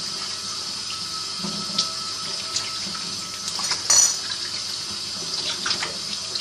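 Kitchen tap running steadily into the sink while hands are washed under it, with a few splashes and a sharp knock about four seconds in.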